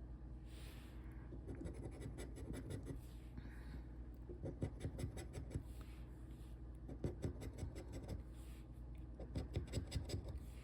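Scratching the coating off a lottery scratch-off ticket: quick bursts of short, rapid scraping strokes that start about a second and a half in, with short pauses between bursts.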